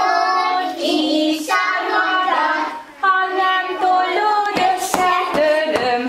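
A group of small children singing a nursery song together, with a woman's voice leading, and a few sharp hand claps at about three a second near the end.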